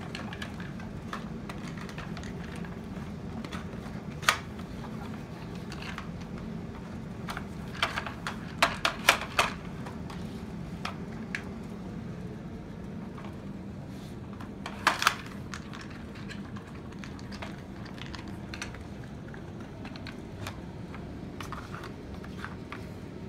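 Plastic dog puzzle toys clicking and knocking as Dobermans nose and paw at them for treats, over a steady low hum. The clicks are scattered, with the loudest knocks in a quick run about eight to nine seconds in and a pair near fifteen seconds.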